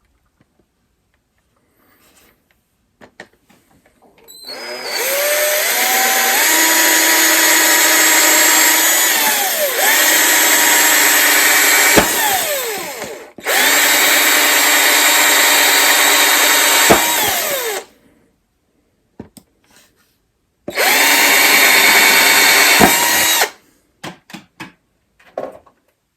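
Power drill with a 3/16-inch bit boring holes, in three runs: a long first one of about nine seconds, then two shorter ones. The motor whine rises as each run spins up and falls away as it stops.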